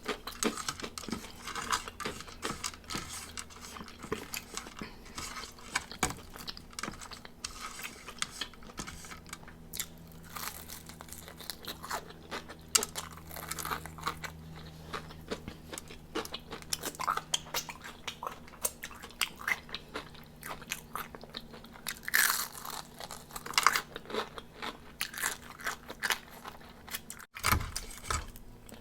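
Close-miked eating of crispy fried chicken wings: repeated bites and chewing with the crackle of the crunchy breaded skin, a few louder crunches near the end.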